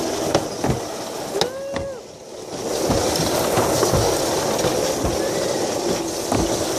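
Alpine slide sled running down its trough track: a continuous rushing rumble with small knocks and wind on the microphone. It eases off around two seconds in, then comes back louder and steadier as the sled speeds up.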